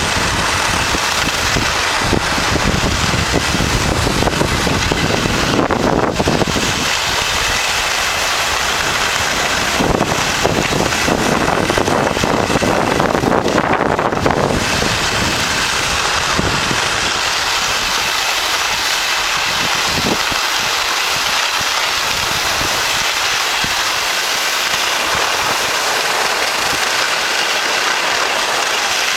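Wind buffeting the microphone of a skier moving downhill, with skis sliding over packed snow: a loud, steady rushing noise with an uneven low rumble, rougher for a few seconds in the middle.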